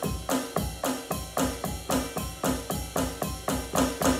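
Electronic drum kit played in a fast, steady groove, close to four strokes a second, with bass drum thumps and snare cracks on the beat.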